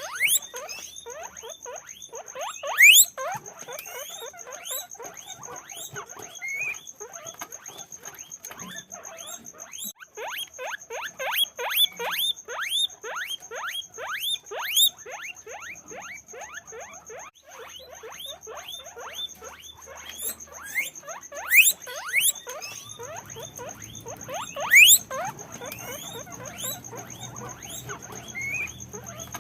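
Many guinea pigs squeaking, a dense chatter of short rising squeaks several a second, with a few louder, longer rising wheeks standing out. A steady high-pitched whine runs underneath.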